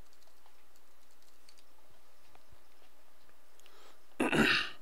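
Faint typing on a computer keyboard: a few soft, scattered key clicks over a low steady hum. A short, louder rush of noise comes near the end.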